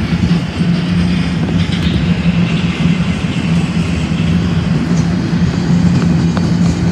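Empty intermodal well cars of a freight train rolling past on the rails: a steady, loud rumble with a constant low hum.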